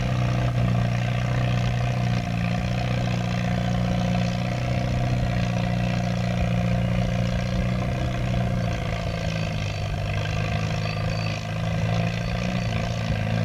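Antique Farmall tractor's engine running hard under load while pulling the weight sled. Its pitch sags a little about two-thirds of the way through.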